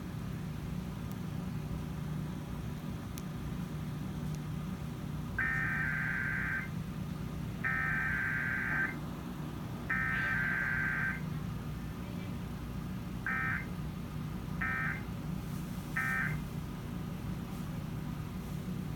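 Emergency Alert System SAME data tones from a TV broadcast: three harsh, buzzing digital header bursts, each about a second long and about a second apart. A few seconds later come three shorter end-of-message bursts, all over a steady low hum.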